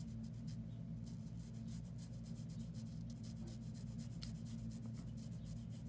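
Colorless blender marker tip stroking quickly over colored-pencil layers on drawing paper: a faint, rapid scratchy rubbing, wetting and blending the pencil to set it. A steady low hum runs underneath.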